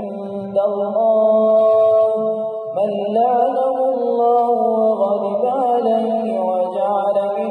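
A man reciting the Qur'an aloud in a melodic chant, with long held notes and ornamented glides in pitch. One held note breaks off a little before the middle, and a new rising phrase begins.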